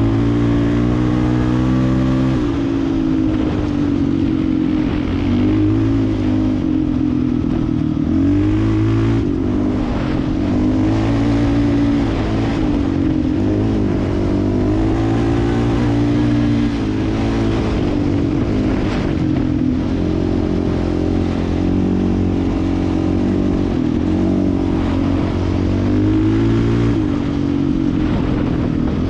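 Yamaha Raptor 660 ATV's single-cylinder four-stroke engine under way on a trail, its pitch rising and falling again and again as the throttle opens and eases off.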